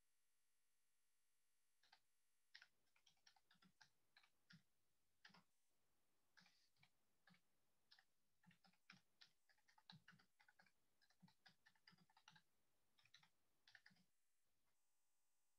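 Faint computer keyboard typing: a run of irregular keystrokes that starts about two seconds in and stops shortly before the end.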